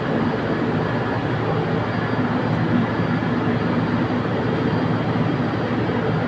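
Industrial machinery running steadily: an even mechanical roar with a constant hum, unchanging throughout.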